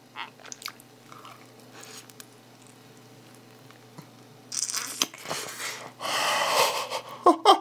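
A person biting into a fried chicken drumstick and stripping the meat off the bone, with wet crunching and chewing. It is mostly soft, quiet chewing at first, then loud crunching bites from about four and a half seconds in and again about a second later.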